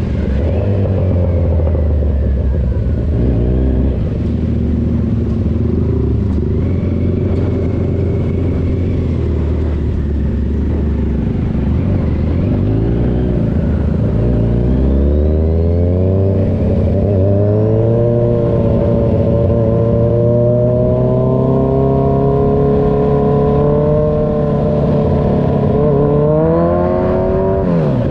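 Kawasaki Z1000 Sugomi's inline-four engine through an Avionic V4 aftermarket exhaust, running at a low, steady note for the first half, then climbing in pitch from about halfway through, with a brief dip and rise again near the end.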